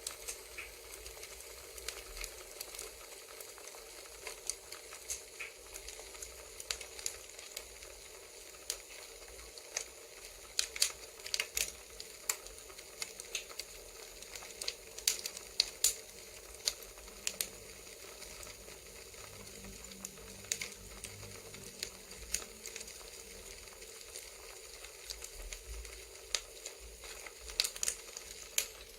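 Crackling campfire: a steady soft hiss with irregular sharp pops and snaps of burning wood.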